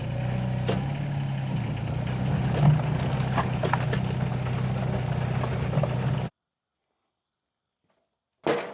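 Engine idling steadily, with scattered knocks and clicks over it; the sound cuts off abruptly a little over six seconds in, and after a pause a single sharp knock sounds near the end.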